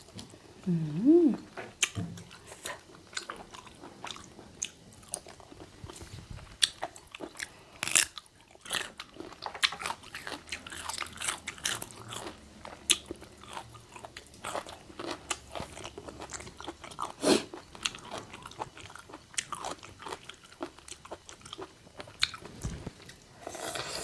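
Close-up chewing and crunching of mouthfuls of spicy instant-noodle seafood salad, the noodles eaten unsoaked and crunchy, with many small crunches throughout. A short hum from the eater about a second in.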